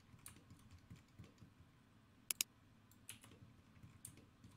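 Faint, scattered clicks of a computer mouse and keyboard, with a sharp double click a little past halfway.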